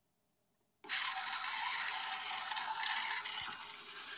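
Craig suitcase turntable starting up at 45 RPM, with a steady scraping, grinding noise that starts suddenly about a second in. It doesn't sound too good.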